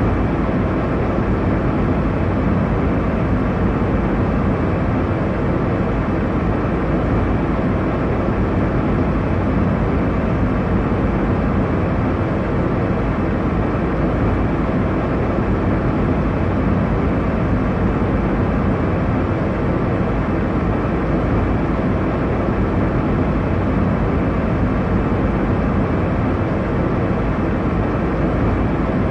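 Steady low rumble and rush of an airliner cabin in flight: engine and airflow noise, even throughout, with most of its weight in the low end.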